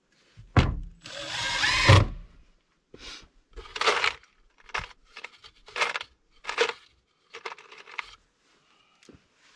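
Cordless drill boring into a 2x6 wooden board: a knock, then about a second of the drill running with its pitch rising. After that come several short bursts of knocking and handling noise.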